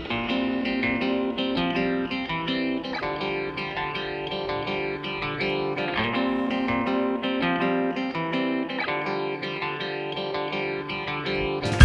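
Background music: a guitar picking a run of quick notes over a steady chord, with no fireworks heard.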